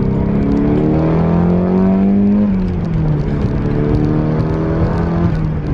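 Nissan 180SX's turbocharged SR20DET four-cylinder running through a new single 3-inch stainless steel exhaust. Its pitch rises for about two seconds, drops away, then climbs and falls once more.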